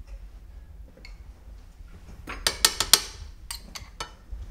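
Metal spoon clinking against a jar and plate while seafood sauce is scooped out: a quick run of about five sharp clinks just before halfway, then a few softer ones.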